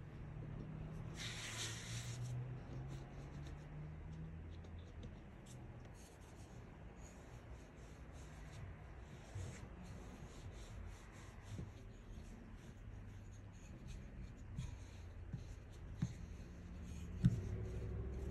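Bread dough being pressed flat by hand and then rolled out with a thin wooden rolling pin on a silicone pastry mat: soft, repeated rubbing and scraping strokes, with a few light knocks near the end.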